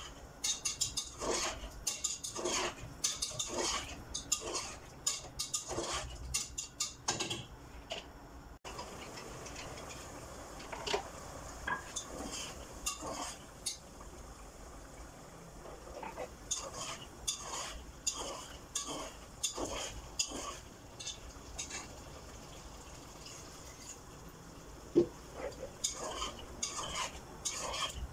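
A spoon and spatula scraping and clicking against a nonstick pot while chicken and mushrooms are stirred in sauce, in quick irregular strokes, with one sharp knock near the end.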